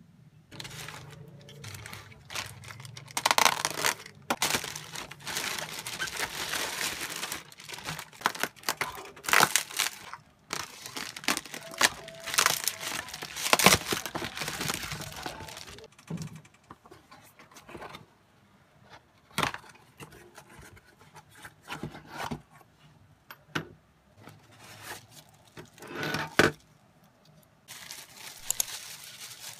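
Plastic packaging crinkling and tearing as a tablet stand is unwrapped from its inflatable air-column wrap and thin plastic bag; dense crackling through the first half gives way to scattered clicks and knocks.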